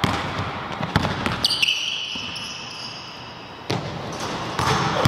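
Basketball bouncing on a hardwood gym floor in separate thuds. A high-pitched squeak starts about a second and a half in and fades over the next couple of seconds.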